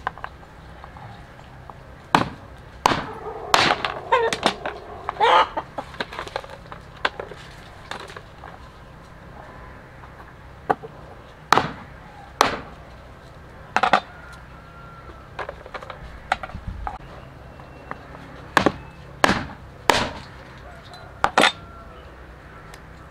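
Heavy cleaver chopping on a plastic cutting board in single sharp strikes at irregular intervals. Hens cluck in the background, with a longer call about four seconds in.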